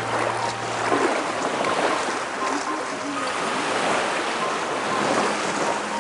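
Sea surf washing in against a concrete seawall, a steady rushing with gentle swells, with wind on the microphone.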